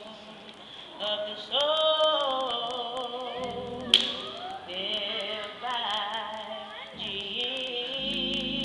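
A woman singing solo, holding long wavering notes with vibrato and sliding between pitches. A single sharp click about four seconds in.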